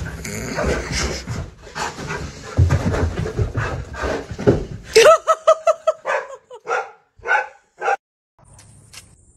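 A dog playing on a bed, scuffling in the duvet, then about halfway a quick run of short high-pitched whining yips that trail off.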